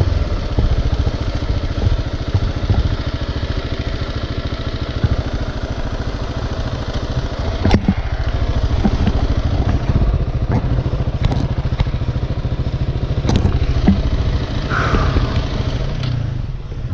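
Trail motorcycle engine running steadily at low revs, with a couple of sharp knocks, about eight and thirteen seconds in.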